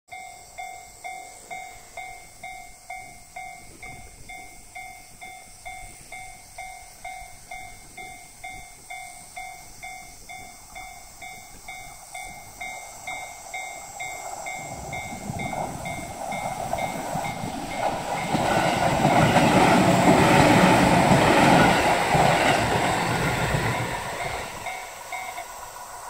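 Japanese level-crossing electronic warning bell ringing, about one and a half strokes a second. From about halfway a JR 205-series electric train approaches, passes loudly for several seconds, and fades away. The bell stops just before the end.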